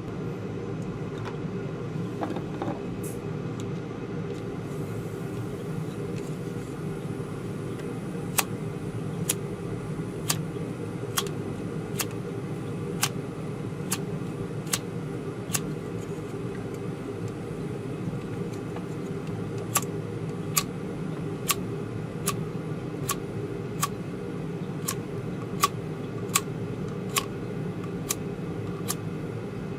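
Repeated sharp clicks of a butane soldering iron's igniter being worked, about one a second, starting some eight seconds in and pausing briefly midway, while the iron fails to light. Under them runs a steady low hum.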